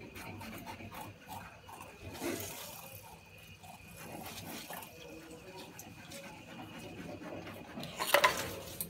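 Porcupines feeding and shuffling about: a run of small clicks and rustles, with a louder rustling burst about eight seconds in.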